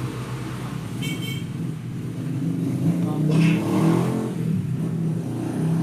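Car engine running, its pitch drifting up and down, with a short high-pitched tone about a second in.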